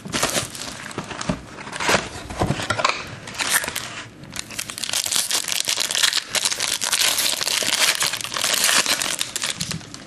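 Plastic wrapping on a box of trading cards being torn and crumpled as the box is opened: a dense crinkling and crackling, busiest in the second half.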